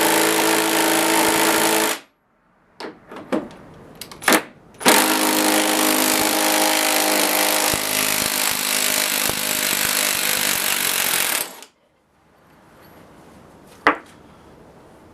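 Bosch GSB18V-535C cordless hammer drill boring a bolt hole with a 3/8 in cobalt bit: a steady run with a motor whine that stops about two seconds in, a few knocks and clicks, then a second run of about seven seconds that stops. A single sharp click near the end.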